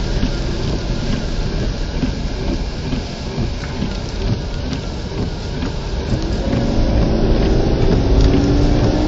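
Heavy rain pattering on a car's roof and windshield over low road and engine noise. About six and a half seconds in, a rising engine note comes in as the car picks up speed.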